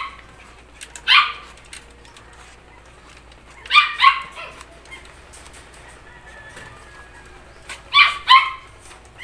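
Small dog barking: five short, high-pitched barks, one about a second in, then two quick pairs near the middle and near the end.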